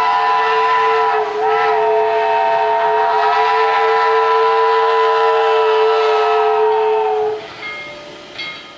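Steam whistle sounding a chord of several tones at once, typical of a multi-chime whistle. It dips briefly about a second in, then holds one long blast of about six seconds before stopping, followed by a faint short higher toot near the end.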